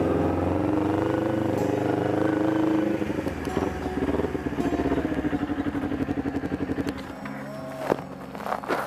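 Kawasaki Ninja sport motorcycle engine running at low revs as the bike rolls slowly up and comes to a stop, with an even, fast pulsing from the exhaust. The engine sound drops away about seven seconds in, followed by a couple of sharp knocks near the end.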